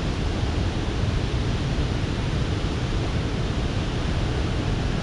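Steady rushing roar of water pouring through a dam spillway's open flood gates and churning around a small boat, with low wind buffeting on the microphone.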